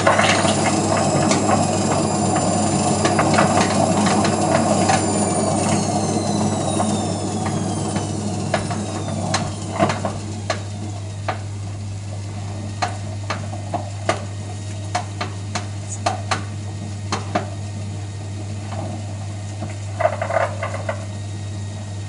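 Hotpoint Aquarius WMF520P washing machine running, with a high whine that falls in pitch between about five and ten seconds in, over a steady low hum, and irregular clicks and knocks from the drum. The noise is the sign of a bad drum spider, the arm at the back of the drum that the bearings are attached to.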